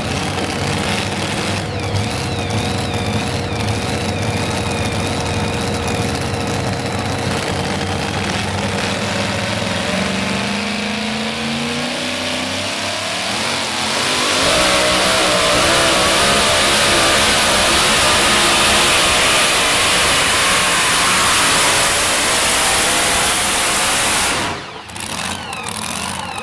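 Supercharged engine of a modified 2WD pulling truck running while hooked to the sled, revving up with a rising pitch, then going to full throttle about halfway through as it launches down the track pulling the sled. The sound breaks off abruptly near the end.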